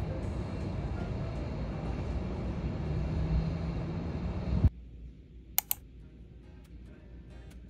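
Steady city night ambience heard from a high-rise: a low, even hum of distant traffic that cuts off suddenly after about four and a half seconds. What follows is much quieter room tone with two sharp clicks.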